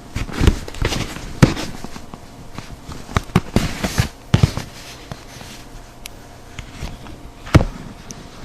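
A pry tool scraping along the seam of a first-generation iPod touch case, with a series of sharp clicks and snaps as the two halves are prised apart; the loudest snap comes near the end.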